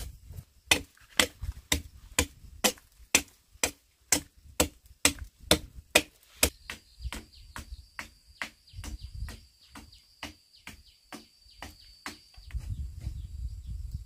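A hand tool chopping into a hewn timber beam in a steady rhythm of about two strokes a second, the blows fainter in the second half.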